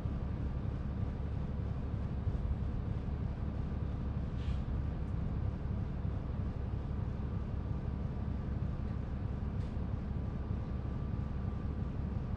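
Cummins ISL straight-six diesel of a 2005 New Flyer D40LF transit bus idling with a steady low rumble. Two brief faint hisses come through about a third of the way in and again near the three-quarter mark.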